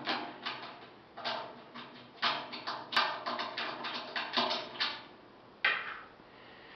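Star knobs being unscrewed by hand from the stainless-steel side panel of a screw feeder: irregular clusters of quick clicks and knocks, with a last sharp knock near the end.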